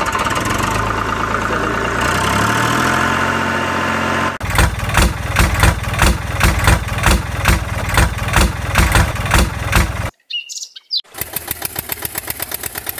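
Tractor engine sound effect laid over the toy play. It runs steadily, then chugs about twice a second from about four seconds in, then chugs faster after a brief pause near ten seconds. A short bird chirp sounds in that pause.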